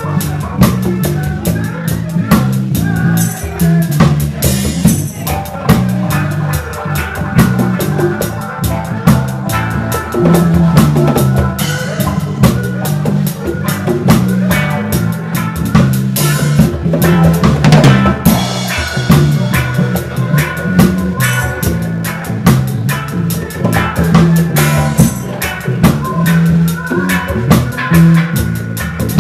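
Live reggae band playing, heard close to the drum kit: steady drum-kit hits of bass drum, snare and cymbals over a repeating bass line.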